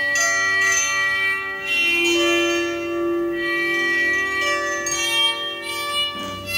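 Ambient soundscape music of layered, sustained tones, with a stronger low tone coming in about two seconds in.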